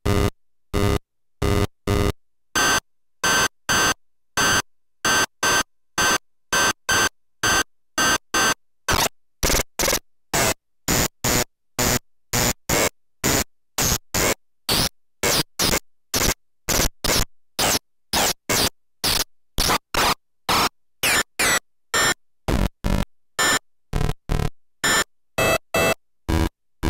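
Hand-built analog noise machine putting out harsh bursts of noise chopped on and off in a rhythm of about two to three pulses a second, quickening near the end. Some pulses carry a thin high steady tone.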